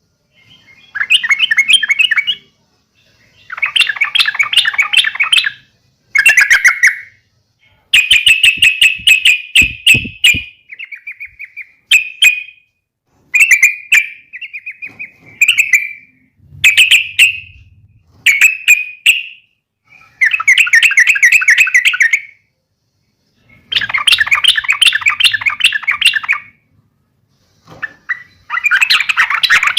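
Yellow-vented bulbul (trucuk) giving fighting calls, in repeated bouts of fast chattering notes one to three seconds long with short gaps between them. A run of sharp clicks comes about eight seconds in.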